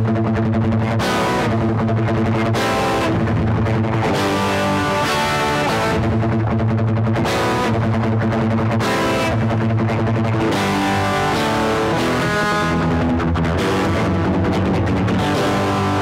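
Electric guitar, a Fender Stratocaster played through a Marshall Jackhammer distortion pedal, playing a repeating rock riff on the low strings with short gaps between phrases.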